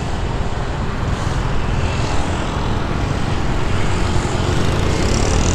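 Road traffic: motorbikes and cars running past on a wide city road, with one motorbike passing close and a little louder near the end.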